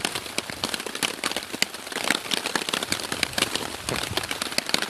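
Steady rain, its drops striking a hammock tarp overhead in a dense, irregular patter of small ticks.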